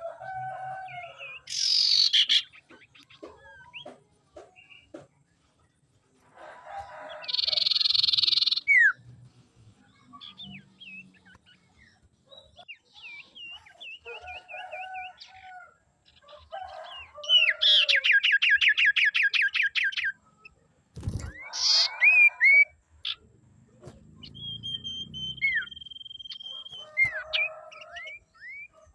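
Common iora calling and singing: varied short whistled notes, a fast trill of about six notes a second starting about 17 s in, and one long steady whistle near the end. A single sharp click sounds a little after the trill.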